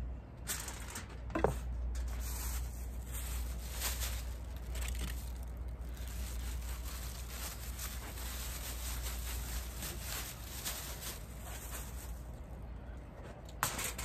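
Plastic bag and packaging crinkling and rustling in the hands, in irregular crackly bursts, with a sharper tick about a second and a half in. A steady low hum runs underneath.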